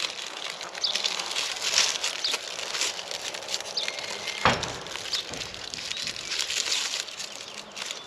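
Crinkling and rustling of shiny plastic ribbon being handled and tied onto a pole, with one sharp knock a little past halfway. Small birds chirp now and then in the background.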